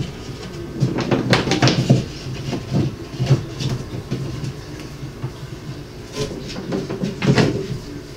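White plastic-sheathed electrical cable being handled and pulled through pot-light holes in a drywall ceiling, rustling and scraping against the board in irregular bursts, busiest about a second in and again near the end.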